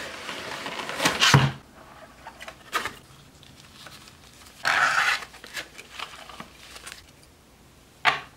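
Clear plastic packaging rustling and crinkling as hands slide a clamshell tray out of its cardboard box and peel a plastic sheet off an HO scale model hopper car, with a short sharp click about eight seconds in.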